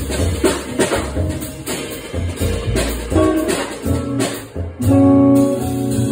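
Live jazz trio playing: hollow-body archtop electric guitar, upright double bass and drum kit, with the guitar's chords ringing out held near the end.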